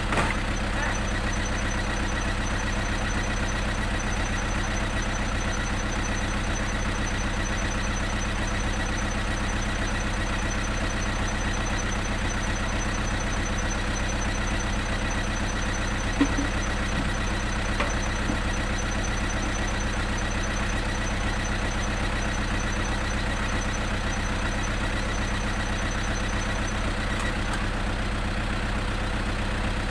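Truck engine idling steadily, with one short knock about 16 seconds in.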